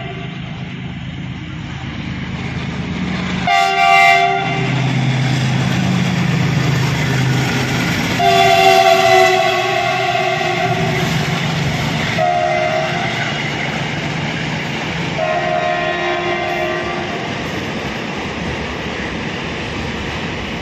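Freight train running on the rails with a steady rumble of wheels, while a locomotive horn sounds four times: a short blast, a long one of about two seconds, another short one and a last blast of about a second and a half.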